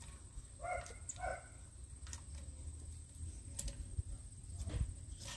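Scattered light metal clicks and taps from handling and adjusting a bar-mounted chainsaw sharpening jig on a pole saw's bar. A dog barks twice in quick succession about a second in.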